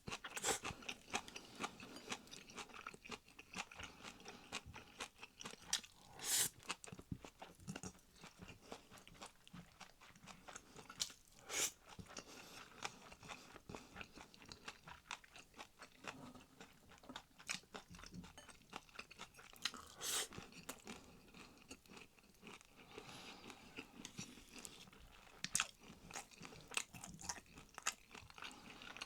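A person chewing food close to the microphone: wet chewing with crunching bites, and a few louder sharp clicks scattered through.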